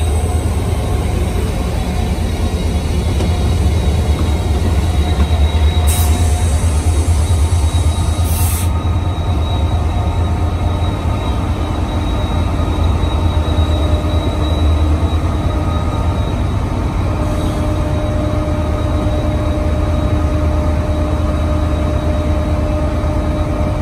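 Diesel locomotive engine running with a steady low rumble and faint steady tones above it. Two brief hisses sound about six and eight seconds in.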